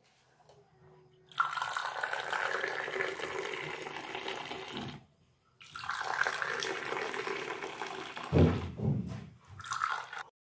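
Moroccan green tea poured in a stream from a teapot into glass tea glasses, frothing as it fills them: two long pours with a short break between, a dull low knock a little after eight seconds, then a brief third pour near the end.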